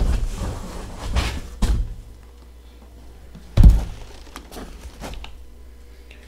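Cardboard rustling and scraping as a small taped cardboard package is lifted out of a shipping box, then one loud thunk just past halfway as it is set down on a table, followed by a few light knocks.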